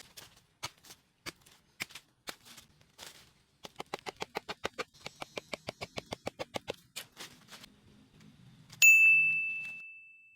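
A series of sharp clicks or taps, irregular at first, then a quick even run of about six or seven a second, followed near the end by a single bright ding that rings and fades away.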